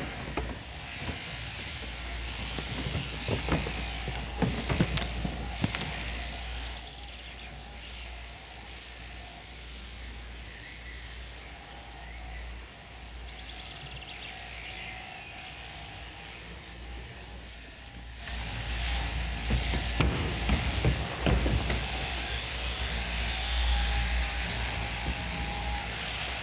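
Electric sheep-shearing handpieces buzzing steadily as they cut through fleece. The buzz drops lower for about ten seconds in the middle, then comes back louder.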